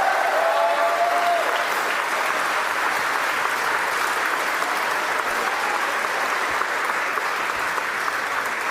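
A crowd applauding steadily, with a few voices cheering in the first second or so.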